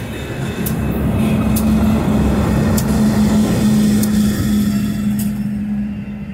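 Diesel locomotive at the rear of a freight train passing close by, its engine running with a steady hum and a few wheel clicks. It swells as it goes past, then fades away as the train moves off.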